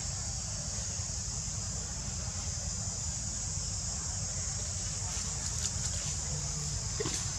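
Outdoor background noise: a steady high-pitched hiss over a low rumble, with a few faint clicks near the end.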